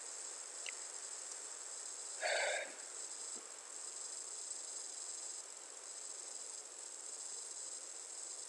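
Steady faint hiss of background noise from the narrator's recording microphone, with one brief short sound a little over two seconds in.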